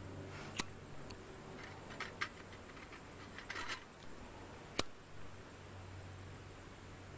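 Several sharp clicks and a short scraping rasp about halfway through: a disposable lighter being struck by hand to light a solid fuel tablet.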